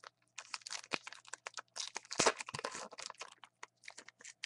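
Trading-card pack wrapper crinkling and tearing as it is ripped open: a dense run of crackles, loudest about two seconds in, thinning to scattered clicks near the end.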